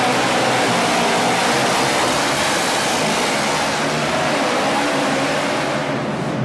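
Twin-engine modified pulling garden tractor running both engines hard at full throttle under load, a loud, rough engine sound that wavers in pitch and eases slightly near the end.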